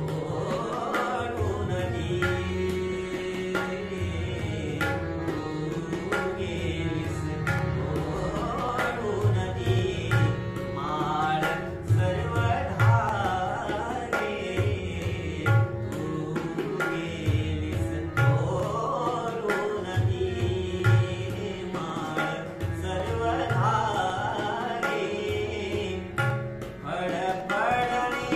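Young male voice singing a Marathi semi-classical song in long ornamented, gliding phrases, accompanied by harmonium holding sustained notes and tabla keeping a steady rhythm with deep bass strokes.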